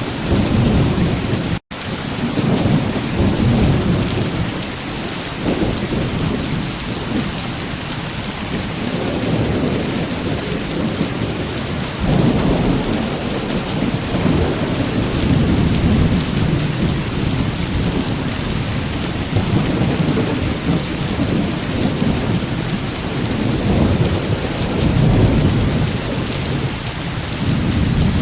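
Heavy rain pouring steadily, with thunder rumbling low underneath in slow rolling waves. The sound cuts out for an instant about a second and a half in.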